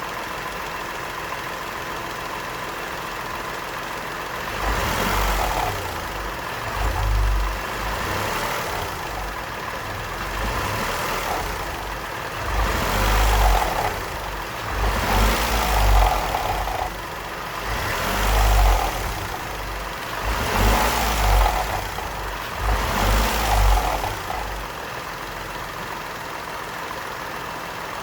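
Peugeot 208 1.2 VTi three-cylinder petrol engine idling, then revved up and down repeatedly for about twenty seconds before settling back to idle. Each rev brings a rising and falling hiss, a suction noise the owner suspects is not normal.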